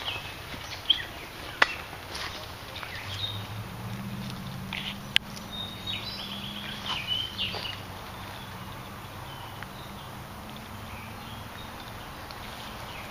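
Rustling footsteps through woodland undergrowth, with birds chirping now and then and a few sharp clicks, the loudest about a second and a half in and about five seconds in.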